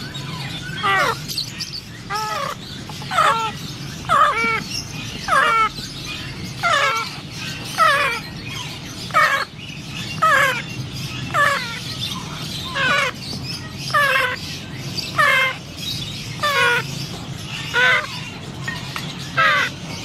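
African grey parrot chicks giving repeated food-begging calls while being hand-fed with a syringe, a little under one call a second, each a short, harsh, downward-arching cry.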